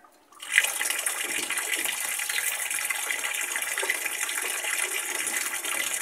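Whirlpool top-load washing machine filling with water: the inlet valve opens about half a second in and water sprays into the tub with a steady hiss, topping up the rinse water.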